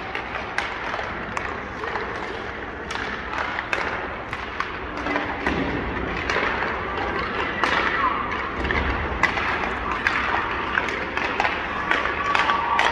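Ice hockey warm-up: irregular sharp knocks of pucks hitting sticks, boards and glass, and skates scraping on the ice, over a steady murmur of voices echoing in the arena.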